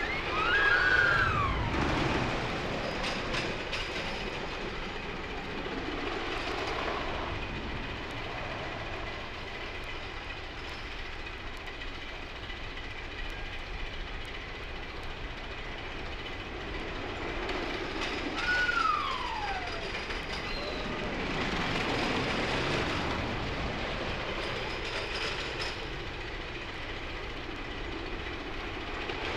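Rail cars rattling and rumbling steadily along a track, with two brief high-pitched sounds falling in pitch, one about a second in and one past the middle.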